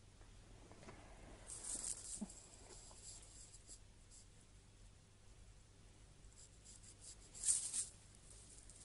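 Faint rustling handling noise in two short bursts, about one and a half seconds in and again near the end, over a low steady hum.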